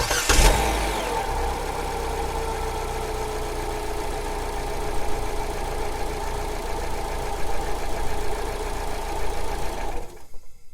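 Car engine starting, catching with a loud burst in the first half second, then idling steadily. About ten seconds in it is switched off and the sound dies away.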